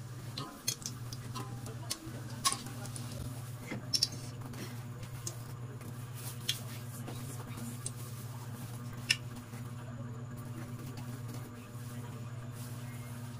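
A metal fork tapping and clicking against a plate and an aluminium wok as fried bread pieces are handled, a few separate sharp clicks over a steady low hum.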